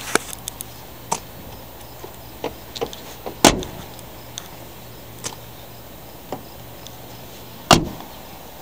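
Pontiac Grand Prix car doors being shut, two solid slams about four seconds apart, with lighter clicks and handling noise in between.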